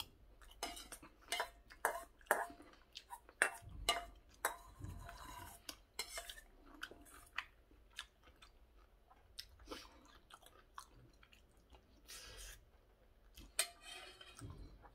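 Metal spoon clinking and scraping against a stainless steel bowl, with chewing of curry rice between the clicks.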